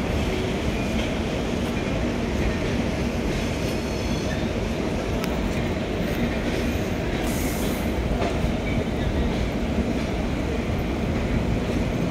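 Indian Railways LHB passenger coaches of an express train rolling past steadily as it pulls out, with a continuous rumble of wheels on rail. A brief high hiss comes about seven seconds in.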